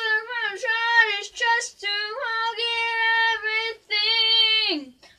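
A child singing unaccompanied in a high voice, in several phrases with long held notes; the last long note slides down in pitch and stops near the end.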